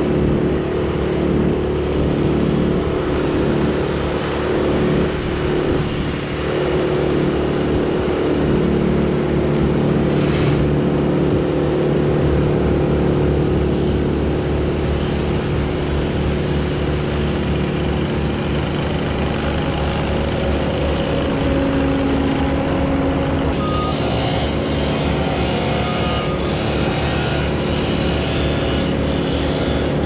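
Heavy equipment engines running steadily: a continuous low engine drone with no break.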